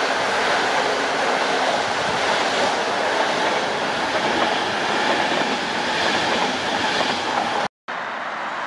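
Passenger train coaches rolling past close by, a steady loud rush of wheel and rail noise. It cuts off abruptly near the end, and a quieter steady noise follows.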